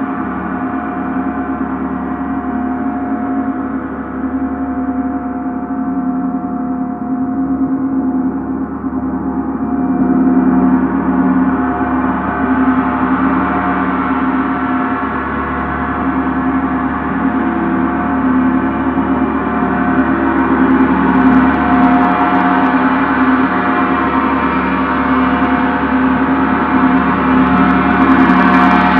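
A Paiste gong played continuously with two soft-headed mallets: a sustained wash of many overlapping ringing tones that slowly grows louder and brighter, with a sharper, brighter stroke near the end.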